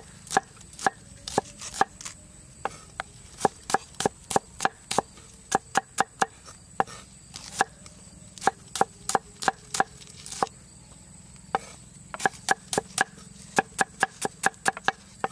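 Cleaver chopping red onions on a thick wooden chopping board: a run of sharp knocks, a few a second, with brief pauses.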